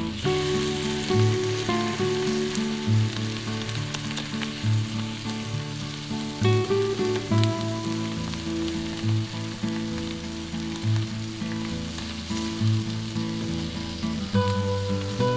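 Food sizzling steadily as it fries in a pan of hot fat, with light background music.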